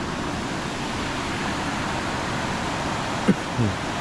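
Steady rush of water from Snoqualmie Falls and the river below it. A sharp knock comes near the end, followed by a short, low downward-gliding sound.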